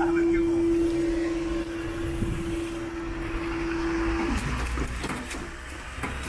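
A single long, steady warning tone on one note, cut off abruptly about four seconds in, followed by a low engine rumble.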